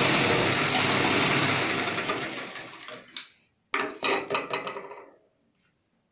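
Sewing machine stitching fabric at a steady speed, slowing and stopping about three seconds in. After a click it runs again briefly and winds down to a stop about five seconds in.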